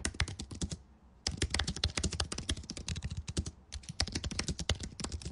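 Rapid typing on a computer keyboard: quick, irregular key clicks, pausing briefly about a second in and again just before four seconds.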